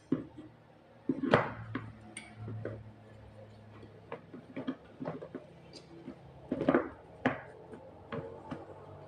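Irregular clicks and knocks of an electric food chopper's stainless-steel motor head being set and twisted onto its hard plastic bowl lid, with the loudest knocks about a second and a half in and again near the seven-second mark.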